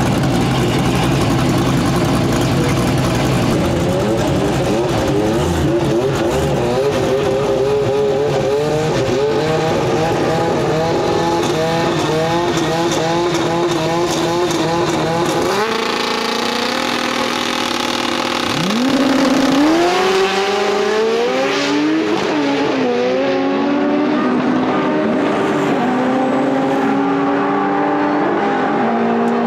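Drag-racing engines, the ProCharged 408 cubic-inch LS V8 in a Corvette and a Honda Civic, idling and revving at the starting line. About two-thirds through they launch, the engine note climbing sharply and stepping up through several gear changes down the strip.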